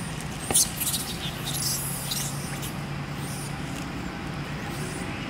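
Long-tailed macaques giving short, high squeaks, the sharpest and loudest about half a second in, over a steady low hum of distant traffic.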